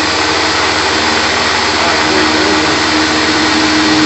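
Shop vacuum running steadily, its hose held at the cutter to suck up chips, over the steady whine of a Tormach PCNC 1100 CNC mill's spindle slot-milling a UHMW polyethylene pulley blank. The whine grows a little louder near the end.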